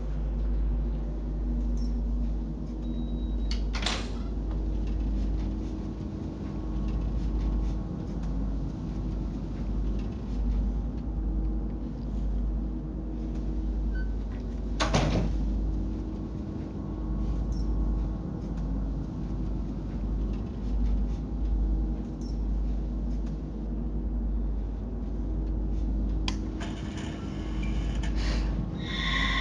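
A low, steady rumbling drone from a horror film's sound design. It is broken by a sharp knock or click about 4 seconds in, a louder one about 15 seconds in, and another near the end.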